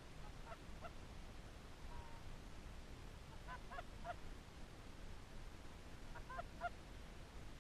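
Faint, distant Canada geese honking in three brief clusters of short calls, over a low wind rumble.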